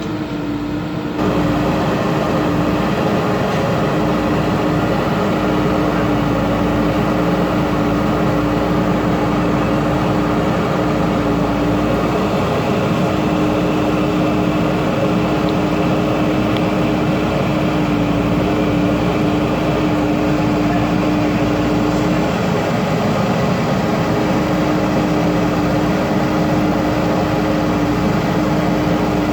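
JCB backhoe loader's diesel engine running steadily with a constant hum, jumping louder about a second in.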